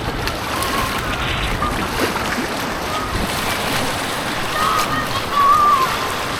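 Steady rush of white water on an artificial paddling course, heard from a kayak.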